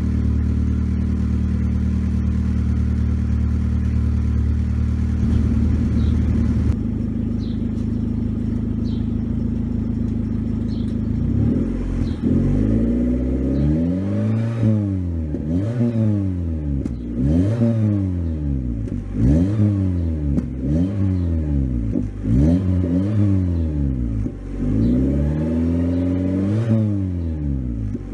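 Exhaust of a 1993 Volkswagen Jetta Mk3 with the center muffler removed: the engine idles steadily, then from about halfway through is revved up and let fall back again and again in quick blips, about ten times.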